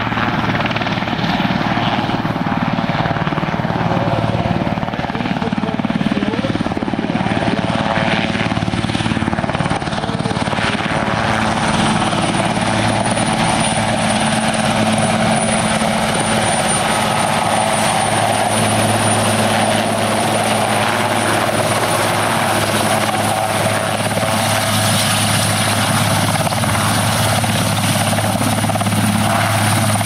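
Swiss Air Force AS332 M1 Super Puma helicopter flying close by: main rotor and twin turboshaft engines running loudly and steadily. A high, thin turbine whine comes in about a third of the way through and holds.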